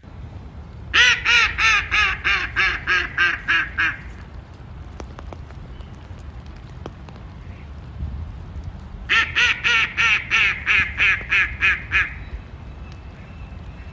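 A mallard hen quacking in two runs of about ten loud quacks each, roughly four a second, the first from about a second in and the second about nine seconds in. This is the hen's decrescendo call.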